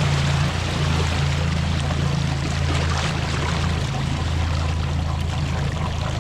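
2020 Mercury 50 hp four-stroke EFI outboard running with a steady low drone, water splashing and trickling around it.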